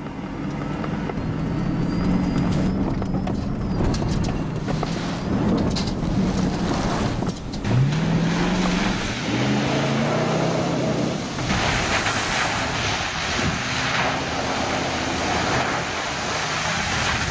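Off-road 4x4 trucks' engines revving hard while driving through a muddy water crossing, with water and mud splashing. The engine pitch climbs sharply about eight seconds in, and a long rush of splashing and spray fills the last few seconds.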